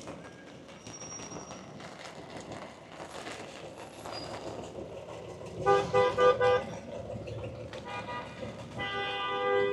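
Car horn honking: a quick run of short beeps about six seconds in, then a long held blast near the end, over a steady hiss of street noise.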